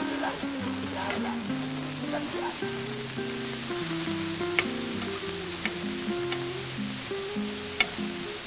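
Food sizzling in a frying pan as it is stirred, with a few sharp clicks of the utensil against the pan. Soft background music with a slow melody of held notes plays underneath.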